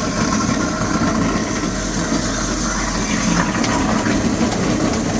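Kitchen garbage disposal running and grinding ice cubes with a little water: a steady, dense grinding rattle.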